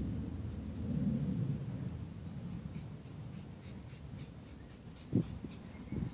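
Wind rumbling on the phone's microphone outdoors, slowly fading, with a single thump about five seconds in.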